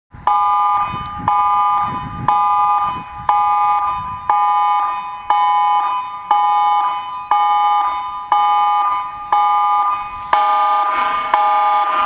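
Emergency alert signal: a chord of three high tones struck in sharp pulses about once a second, each pulse fading away, the tone growing fuller about ten seconds in.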